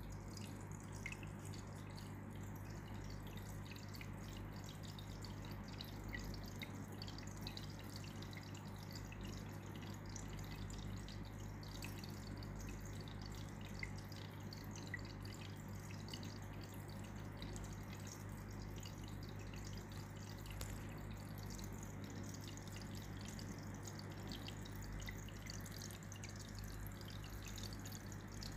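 Hang-on-back aquarium filter's outflow spilling a thin stream of water into the tank: a steady splashing trickle with small scattered drips, over a low steady hum.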